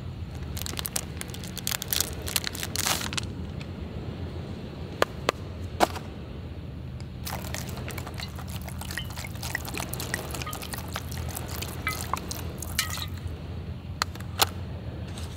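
Liquid dripping and splashing, with scattered sharp clicks and short crackles over a steady low hum.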